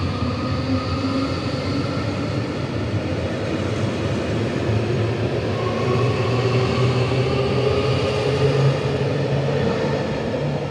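JR Hokkaido Rapid Airport electric train pulling out along the platform, its running noise steady and growing slightly louder, with a motor whine that edges up in pitch as it gathers speed.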